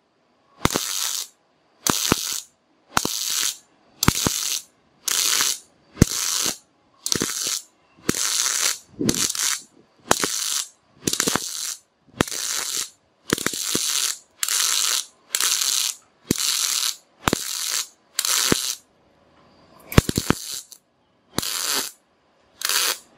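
Mini MIG welder arc crackling in short bursts about once a second under CO2 shielding gas, as the torch trigger is squeezed and released to stitch-weld steel. There is a brief pause near the end, then three more bursts.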